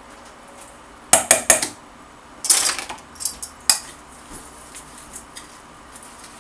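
Metal spoon knocking and scraping against a blender jar and bowl as thick pesto is spooned out: a quick cluster of sharp knocks about a second in, another around two and a half seconds, then lighter taps.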